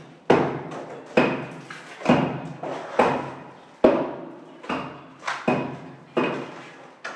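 Trowel slapping mortar into chased wall channels, about once a second, nine strokes in all. Each stroke has a sharp start that trails off quickly.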